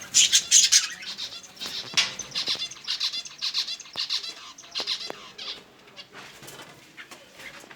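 Pet birds flapping their wings in a run of quick flutters. The flutters are loudest in the first second and die down after about five seconds.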